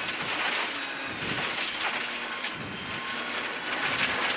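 Rally car at speed on a gravel stage, heard from inside the cabin: the engine running under a steady roar of tyre and gravel noise, with loose stones clicking against the car.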